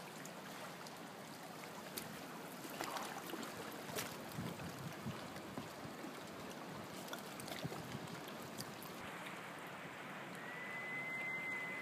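River water lapping and flowing, faint, with a few small knocks. Near the end a steady high whistle lasts about two seconds.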